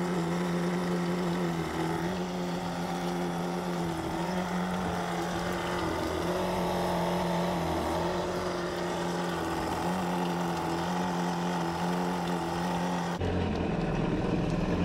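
Yamaha WaveRunner engine idling steadily while its cooling system is flushed through the garden-hose flush port with fresh water and Salt-Away detergent, with flush water running out of the hull.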